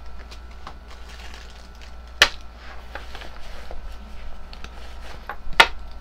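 Small items being taken out of a fabric pouch and set down on a wooden tabletop: light clicks and rustles of handling, with two sharp knocks, one about two seconds in and one near the end.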